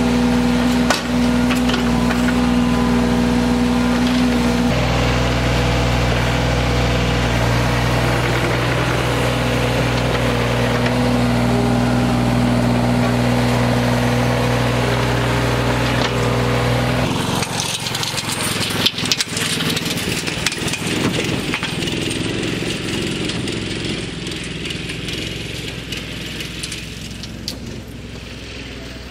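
Diesel engine of a John Deere 35G compact excavator running steadily under digging load, its engine note shifting about 5 seconds in. About 17 seconds in it cuts off abruptly, leaving quieter background sound with a few scattered clicks.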